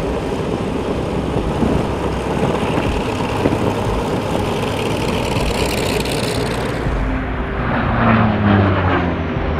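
Grumman F8F Bearcat's radial piston engine and propeller running steadily. About seven seconds in the sound changes, and a falling engine tone follows as the aircraft passes.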